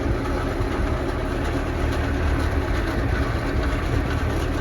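Tractor engine running steadily, driving a feed mixer wagon as it mixes a dairy ration, with a constant low hum.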